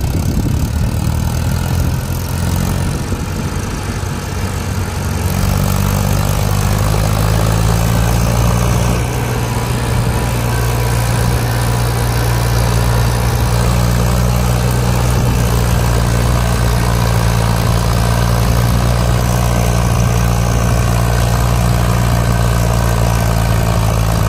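Eicher 333 tractor's three-cylinder diesel engine running under load as it pulls a fully loaded trolley through soft sand, with more tractors running behind it. The engine hum grows louder and steadier about five seconds in.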